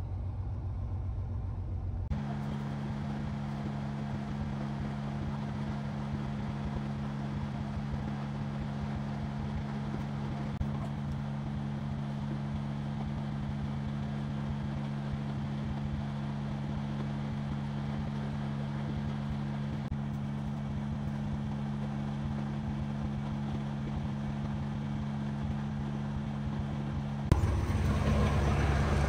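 Truck engine running steadily at constant speed, a low even drone over road noise, heard from inside the cab. The sound changes abruptly about two seconds in and again near the end.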